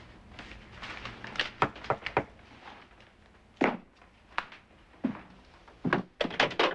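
Scattered thunks and clicks of objects handled on a desk, then footsteps and a door being opened, with a cluster of knocks and clicks near the end.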